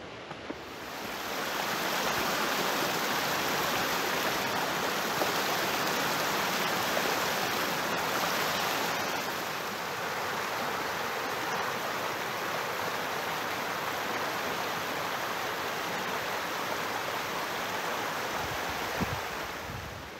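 Mountain creek running fast over rocks and fallen logs: a steady rush of white water that fades in about a second in and fades out near the end.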